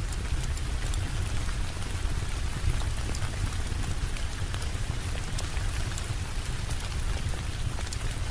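Steady rain ambience: a continuous hiss of rainfall over a deep low rumble, with many sharp ticks and pops scattered throughout.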